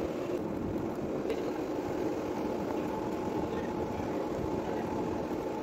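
Heavy-duty metal lathe running steadily while a boring bar cuts inside the centre hole of a large gear blank under flowing coolant: a continuous machine drone with a faint steady tone over it.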